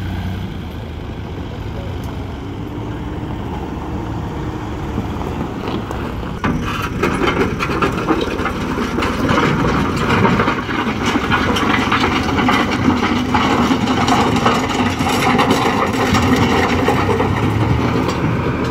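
Farm tractor engines running as tractors drive off a ferry's steel loading ramp. About six seconds in it grows louder, with rattling and clanking, as a tractor rolls close by off the ramp onto gravel.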